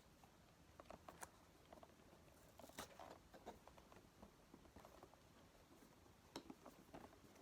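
Faint, scattered clicks and scratching of fingers picking at tape on a cardboard toy box.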